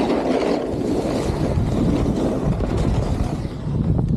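Snowboard sliding over snow, a steady rough scraping of the board on the slope mixed with wind rushing across the microphone while riding.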